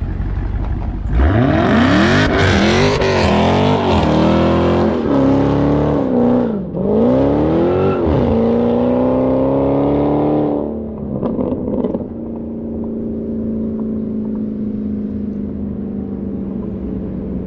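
The supercharged V8 of a Dodge Charger SRT Hellcat with its mid muffler deleted, revving hard up and down about five times during a smoky burnout, with a hiss under the engine. The revving ends with a few crackles, and a steadier, lower drone follows.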